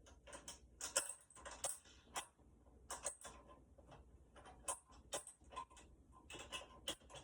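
Faint, irregular clicks and taps of toilet seat mounting hardware being handled as the nuts are fitted onto the seat bolts under the bowl.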